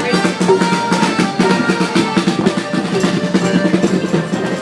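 A street band plays, with drums and percussion driving a dense beat under held low horn notes.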